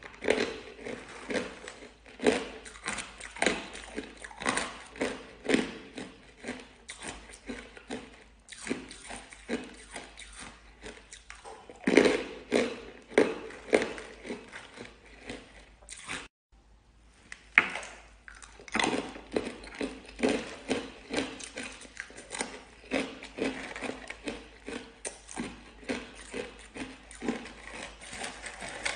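Hard, crunchy frozen ice being bitten and chewed, a dense run of crisp crunches several a second, with a brief break about halfway through.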